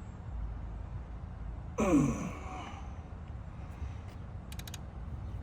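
A man's breathy sigh with a falling pitch about two seconds in, followed near the end by a few quick faint clicks, over a steady low rumble.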